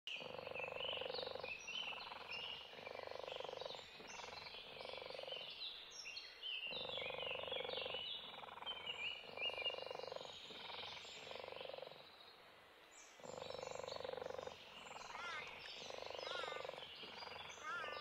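Open-country nature ambience: many birds chirping in short, overlapping notes over a lower, pulsing croaking chorus that comes and goes in stretches of a second or two, with a few rising-and-falling bird calls near the end.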